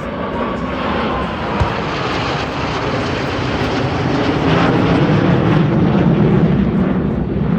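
Aircraft engine roar as an aircraft flies past. The roar grows steadily louder, peaks around five to six seconds in, then eases slightly.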